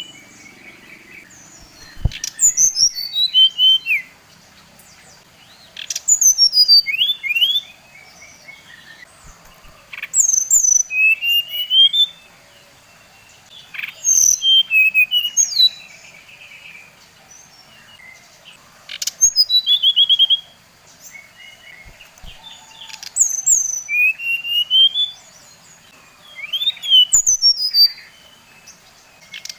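A Bali sirdeci songbird singing in short, loud, rapid phrases of high, sweeping whistled notes, some falling and some rising. Each phrase lasts about two seconds, with a pause of about two seconds between them, seven phrases in all.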